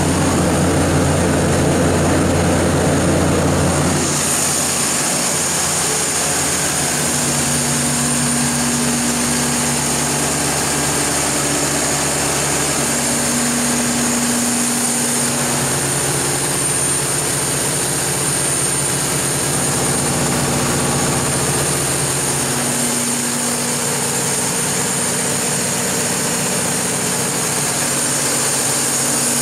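Mitsubishi S12A2 V12 diesel engine of a Kohler 760 kW standby generator set running steadily at governed speed, with a steady hum and a high whine over it. The mix of tones shifts about four seconds in, with the low hum dropping away.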